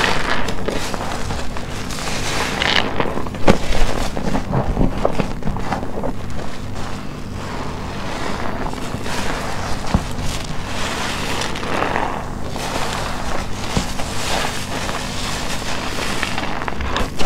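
Soap-soaked sponge being squeezed and pressed, with wet squelching and crackling foam; the loudest squeezes come about three and a half seconds in.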